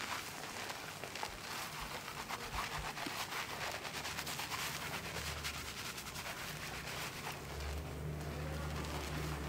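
Hands scrubbing a thick shampoo lather through wet hair and scalp: a dense, wet crackling of foam and hair rubbed close to the microphone. A low steady hum comes in during the second half.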